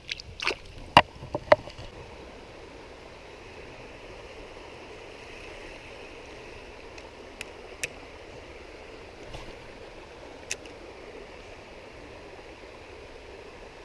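Steady rushing of a shallow, rocky stream. A cluster of loud, sharp knocks and clicks comes in the first couple of seconds, and a few single sharp clicks follow later.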